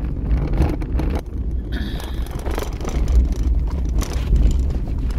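Car driving on a wet road, heard from inside the cabin: a steady low engine and road rumble, with a brief high tone about two seconds in.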